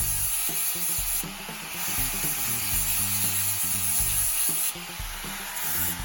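Lawn mower blade being ground sharp on a flap wheel: a steady high grinding hiss that breaks off briefly about a second in and again near the end, over background music with a bass line.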